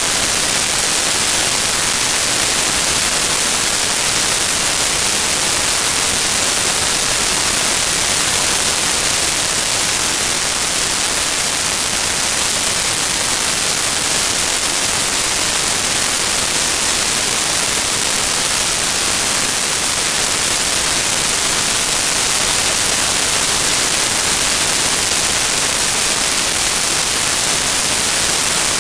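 Steady, loud hiss of rushing air on a small camera microphone mounted under the wing of an RC model plane in flight, with no distinct motor tone.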